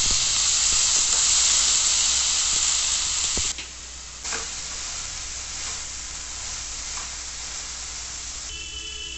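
Green peas, sliced onion, garlic and green chillies sizzling in oil in a frying pan, with a few light spatula clicks. The sizzle is loud at first and drops sharply to a quieter sizzle about three and a half seconds in.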